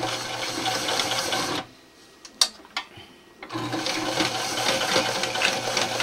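Electric sewing machine running as it stitches through several thick layers of burlap and nylon webbing. It stops for about two seconds in the middle, with two sharp clicks, then runs again.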